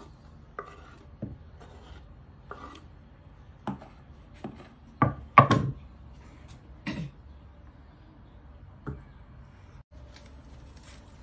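Knife knocking against a wooden cutting board as boiled potato is cut: scattered single knocks at uneven intervals, the loudest pair about five seconds in.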